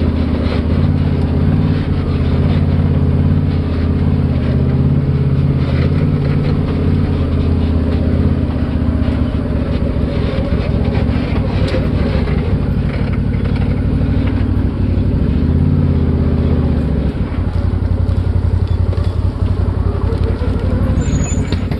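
Can-Am Maverick Sport XRC side-by-side's Rotax V-twin engine running steadily as it crawls over a rough forest trail, with a few knocks from the machine. The engine note shifts about seventeen seconds in.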